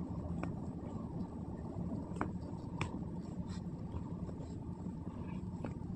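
Thick macrame cord being pulled and knotted by hand: soft rubbing and rustling of the cord, with a few faint clicks, over a steady low hum.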